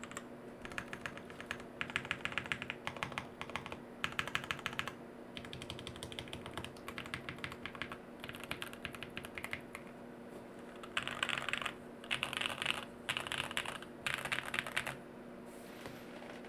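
Typing on a jLabs JP-02 mechanical keyboard with Bolsa Supply Corsa switches on an FR4 plate, no foam, and KBDFans Neon keycaps: runs of rapid keystrokes with short pauses. About two-thirds of the way in come four louder, denser bursts of key presses.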